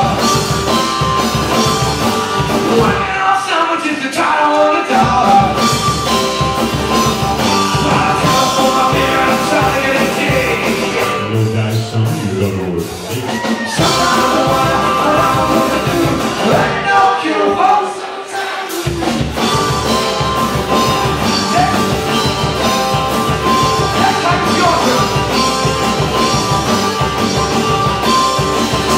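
Live rock and roll band playing: a male singer sings over strummed acoustic guitar, bass and a drum kit. The bass and drums drop out briefly about three seconds in and again about eighteen seconds in, then come back in.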